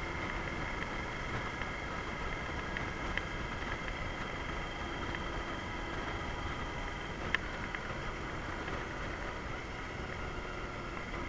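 Yamaha Drag Star Classic's V-twin engine running as the motorcycle rides along, mixed with steady wind and road noise on a handlebar-mounted action camera. A single sharp click about seven seconds in.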